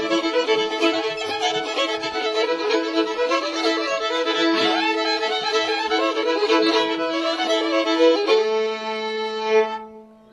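String band of two fiddles with banjo, guitar and bass playing the last bars of a hornpipe. About eight seconds in they land on a final held fiddle chord, which rings for a second or so and then stops.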